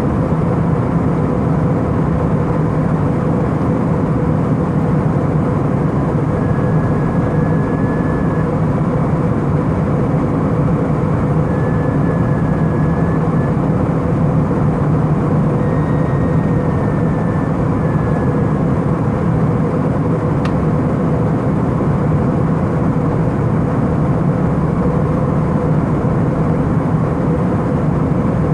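Steady cabin noise of an Airbus A319 airliner in flight: the engines and the rush of air make a loud, even drone with a steady hum. A few faint, brief high tones come through in the middle.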